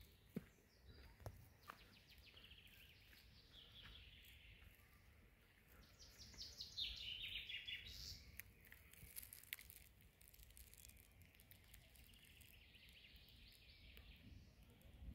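Faint birdsong: small birds chirping and trilling, the loudest trill about six to eight seconds in and more chirping near the end, over a low background rumble.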